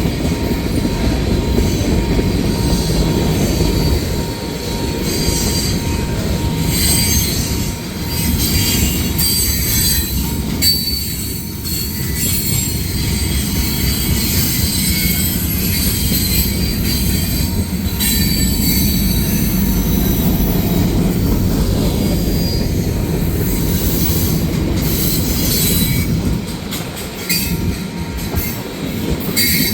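Cars of a manifest freight train rolling past: a steady rumble of wheels on rail, with high wheel squeals coming and going.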